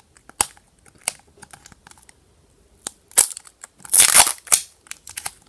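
Tape being picked at and peeled off a plastic gachapon capsule, with crinkling and sharp plastic clicks. The loudest stretch of crinkling comes about four seconds in.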